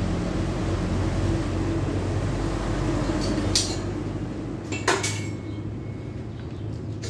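A steady low mechanical hum that fades out about four and a half seconds in, with two sharp metallic clinks a little over a second apart, the second one the louder.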